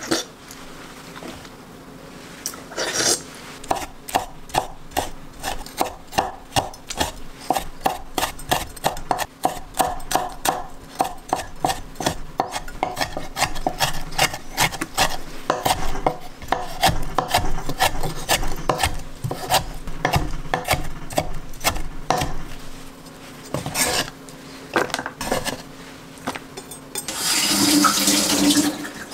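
Henckels chef's knife chopping cherry tomatoes on a wooden cutting board: a quick run of knocks of the blade on the board, then a few scattered strokes. Near the end, tap water runs into the kitchen sink.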